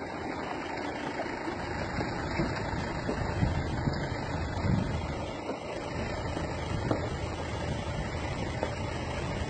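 Steady low rumble of a Volvo FMX road train hauling eight loaded trailers as it rolls by on a dirt road.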